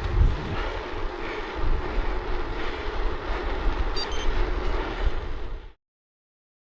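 Wind rushing over the microphone with the rolling noise of a gravel bike riding along a lane, a steady rumble. It cuts off abruptly to total silence about a second before the end.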